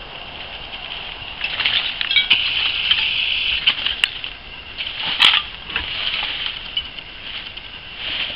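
Digging through a surface dump with a long-handled tool: scraping and rustling through dry leaf litter and debris in uneven surges. There are a couple of sharp metallic clinks, about four and five seconds in.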